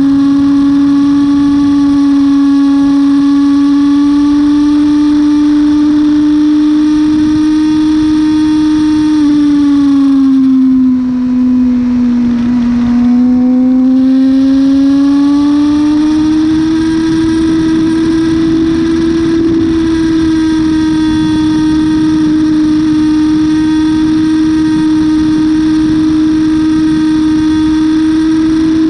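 Yamaha R6 sport bike's inline-four engine running hard at high revs in third gear over heavy wind rush. About a third of the way in, the engine note sags for a few seconds as the revs drop, then climbs back and holds steady slightly higher.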